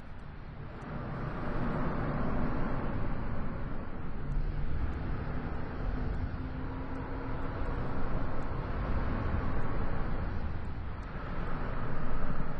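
Propeller aircraft engines running with a steady roar, swelling in loudness about a second in and again near the end.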